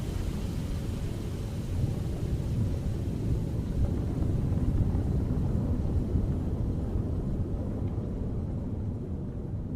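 Synthesized horror sound effect: a dense, low rumbling noise like distant thunder that swells in the middle, then eases as its upper hiss fades away toward the end.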